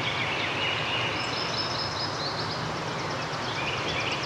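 Forest ambience: a steady background hush with several small birds chirping and trilling high up. One higher trill comes about a second in, and a quick run of chirps near the end.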